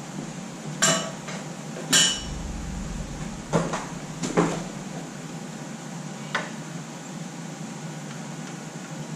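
Metal tools and parts being handled and set down, clanking five times over a few seconds. The two louder clanks in the first couple of seconds ring briefly like struck steel.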